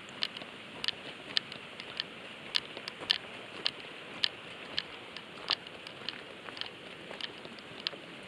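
Footsteps crunching on a gravel forest road at a steady walking pace, about two steps a second, over a faint background hiss.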